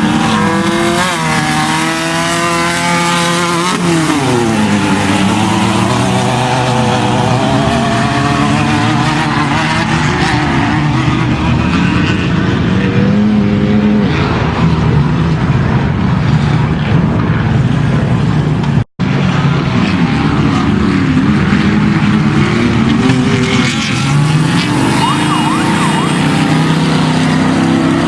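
Off-road race truck's engine running hard, its pitch rising and falling as it revs and shifts, over rough rumbling and rattling noise. The sound cuts out for an instant about two-thirds of the way through.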